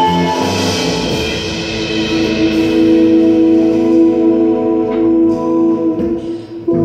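Live jazz band playing an instrumental passage with no singing: keyboards, electric bass and drums, with long held chords over cymbal wash. The sound dips briefly near the end before a new chord comes in.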